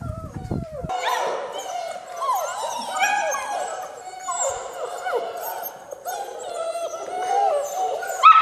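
Six-week-old German Shepherd puppies whining and yelping together, several high voices overlapping and rising and falling in pitch.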